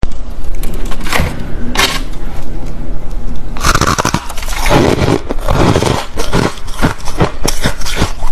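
Fluffy ice being bitten and crunched close to the microphone: two sharp bites in the first two seconds, then dense crackly crunching from about three and a half seconds in.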